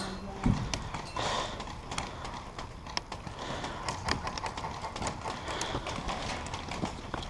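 Scattered sharp clicks and hollow knocks at an uneven pace, the loudest a low knock about half a second in: the sounds of an airsoft skirmish, such as shots, BB hits and footsteps.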